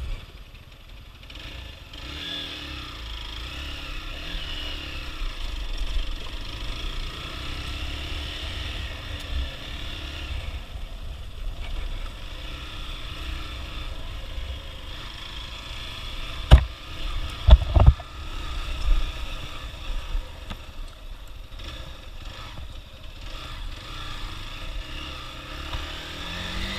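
Hero XPulse 200 motorcycle's single-cylinder engine running at low speed while riding over a rough trail, with a few sharp knocks about two-thirds of the way through.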